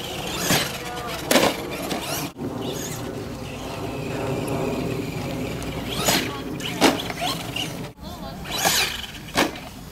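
Radio-controlled car running, with six short, sharp bursts of noise.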